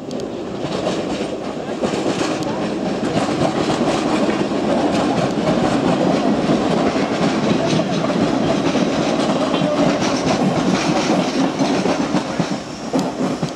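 NS Sprinter electric multiple-unit train running past close by, a steady rolling rumble with rapid clicking and clacking of its wheels over the rails. It builds up just after the start and eases off near the end.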